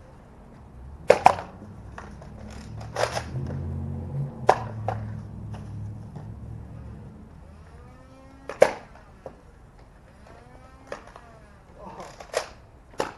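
Scattered sharp snaps and clacks of Nerf blasters, about six spread out with the loudest near the start and about two thirds in. A low rumble runs under the first half and fades out.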